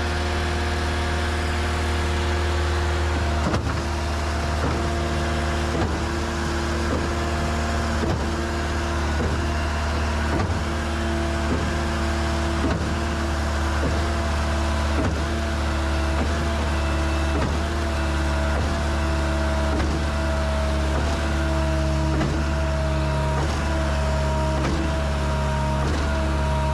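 Concrete mixer truck running: a steady diesel engine drone with a whining tone, sagging slightly in pitch, over a regular pulse a little faster than once a second.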